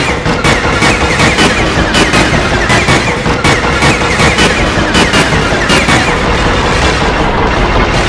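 Sampled wrecking-ball and crashing-brick sound effects, chopped and repeated into a loud, dense rhythmic loop of rapid crashes and impacts. The hits blur together into a steadier wash near the end.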